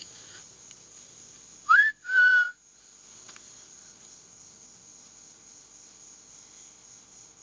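A person whistling two short notes in quick succession, the first sliding up and the second held level, sent out as a call to get a reply.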